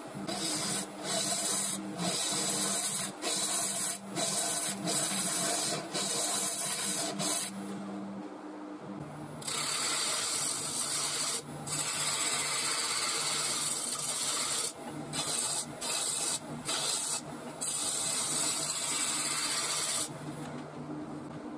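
A turning tool cutting the outside of a spinning mulberry bowl blank on a wood lathe: a hissing, scraping cut in repeated passes with short breaks, over the lathe motor's steady hum. The cutting stops for about two seconds near the middle, and the hum drops lower as it resumes.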